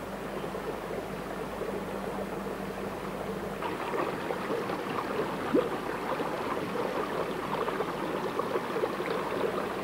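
Steady outdoor rushing noise like running water, with a faint hum in the first few seconds. About four seconds in the sound changes to a rougher hiss with many small crackles, like water trickling and splashing.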